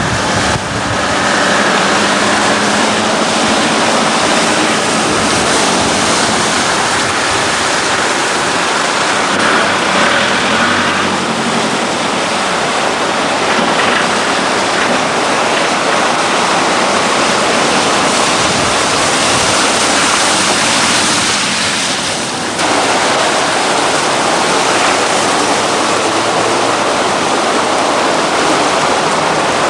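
Loud, steady rushing of floodwater, with a short lull about 22 seconds in.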